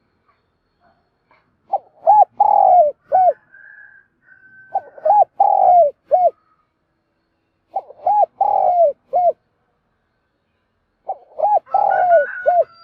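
Spotted dove (a decoy male) cooing in four phrases about three seconds apart. Each phrase is a few short notes with a longer falling note in the middle.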